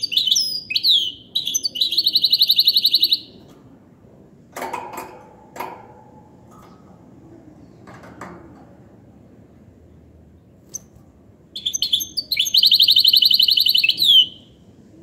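Goldfinch × canary hybrid (mule) singing goldfinch-style song: two bouts of rapid, high trills and twitters, one at the start and another from about 11 seconds in. A few short, dull knocks come in the quiet stretch between the bouts.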